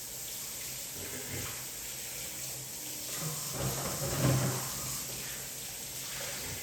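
Kitchen tap running steadily while hands are washed under it, briefly louder about four seconds in.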